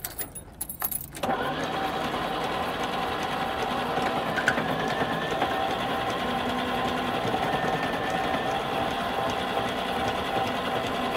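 Starter motor cranking a car engine whose crankcase is filled to the brim with Coca-Cola. It turns the engine over steadily for about ten seconds, starting about a second in, and the engine does not catch.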